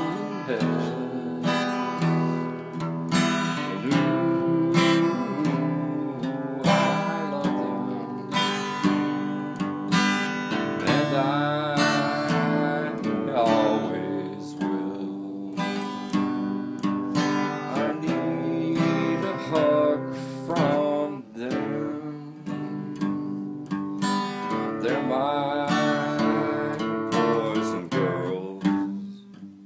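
Acoustic guitar strummed in a steady song rhythm, with a man singing over it.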